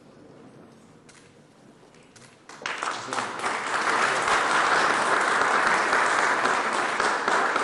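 Audience applause breaks out about two and a half seconds in and carries on steadily; before it there are only a few faint clicks.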